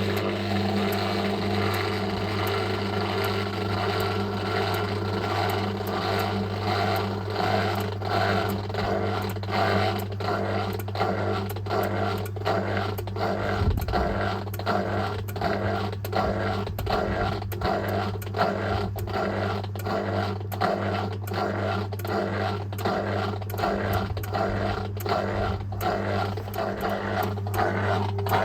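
Homemaker 7 kg top-loading agitator washing machine running in its drain-and-spin stage: a steady motor hum under a regular pulsing rhythm that grows more distinct about a third of the way in.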